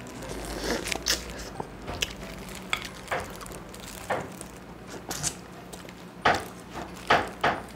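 Close-miked eating sounds: a person chewing braised chicken eaten by hand, a string of short wet mouth smacks and clicks.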